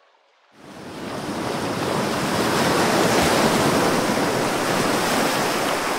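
Steady rushing wash of ocean surf, fading in about half a second in and swelling over the next second or so.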